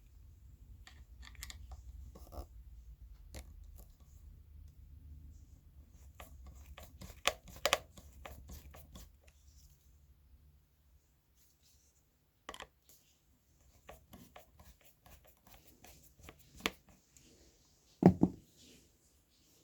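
Screws and plastic parts of a subwoofer being handled during a teardown: scattered clicks and scrapes, with one louder knock near the end.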